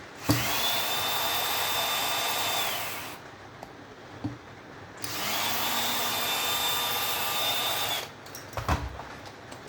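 Power drill-driver spinning out screws in two runs of about three seconds each, its motor whine rising as it speeds up and falling as it stops. A few short knocks follow near the end.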